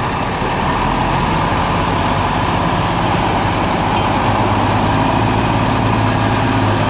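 Cummins M11 10.8-litre inline-six turbo diesel of a concrete mixer truck running steadily. Its low note grows stronger about halfway through.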